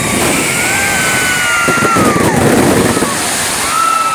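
Fireworks going off at close range: a loud, dense, continuous crackle and hiss of bursting shells and rockets, with long whistling tones gliding down in pitch.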